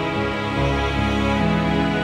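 Background music: held chords over low bass notes that change every second or so.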